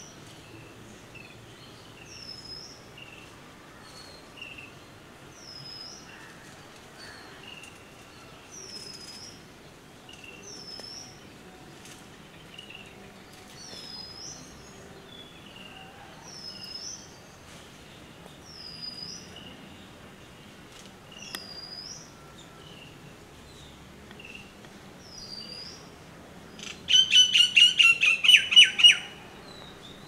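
Another small bird calls over and over, a short high note about every two seconds. Near the end comes a loud rapid rattle of about ten harsh notes lasting two seconds, the whinnying call of a black-rumped flameback woodpecker.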